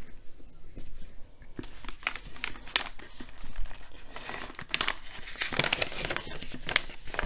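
A translucent sleeve crinkling and rustling as a thin paper module is handled and pulled out of it, in irregular bursts of crackle, busier in the second half.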